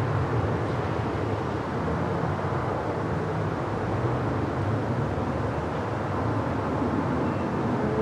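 City park ambience: a steady wash of distant traffic with no single event standing out.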